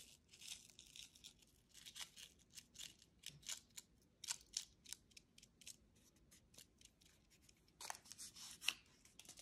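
Crinkling and rustling of a small paper sachet of red chili flakes being handled and shaken over bread: a string of short, sharp crackles, with a denser flurry near the end.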